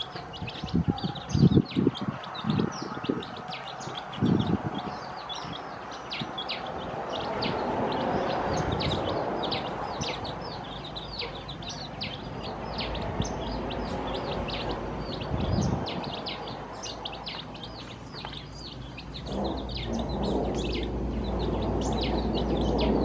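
A brood of newly hatched chicks peeping continually, with many short, high, downward-sliding peeps several times a second. A few loud low thumps come in the first few seconds.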